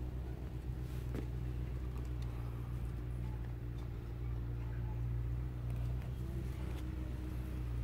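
An engine running steadily at idle: a low, even hum that does not change, with a few faint ticks.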